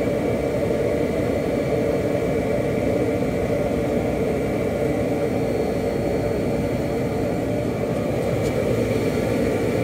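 Vacuum cleaner running steadily while the truck's interior is cleaned: a constant loud whoosh with a faint steady whine.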